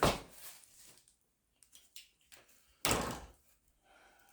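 A sudden knock about three seconds in, like a door or lid being shut, dying away within a second, with a few faint clicks before it.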